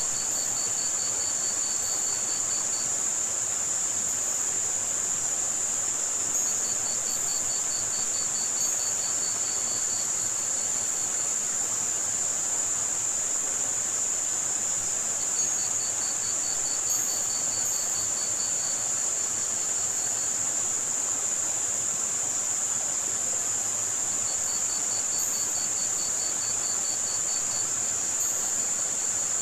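Layered tinnitus-masking soundscape: a steady high-pitched band of white noise with faint high chirps, and cricket trills of rapid, even pulses lasting two to three seconds that come back about every nine seconds, over a soft wash of running water.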